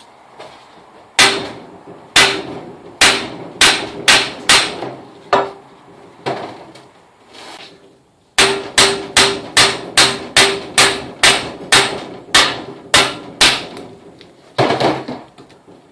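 Hammer blows on a long steel bolt and socket, knocking the front hub out of the wheel bearing in a 2002 Mitsubishi Lancer steering knuckle held in a vise. Each blow rings with a metallic tone. There are about two dozen blows in two runs with a short pause between them, the second run faster at about three a second.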